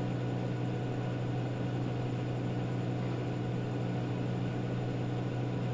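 Steady low hum with a haze of hiss: the room's background noise, with no distinct strokes or knocks.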